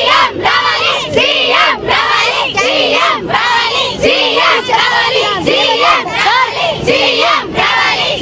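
A crowd of schoolgirls chanting a protest slogan in unison, in regular shouts about twice a second.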